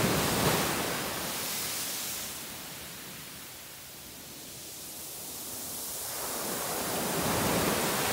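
Small waves breaking on a sandy beach and washing up the shore. A wave breaks at the start and the surf dies down, then a second wave swells and breaks near the end.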